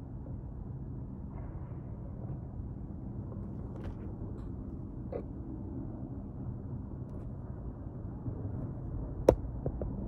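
Low steady rumble of a snow avalanche pouring down a mountainside, under a faint steady hum. One sharp click comes about nine seconds in, followed by a few small ticks.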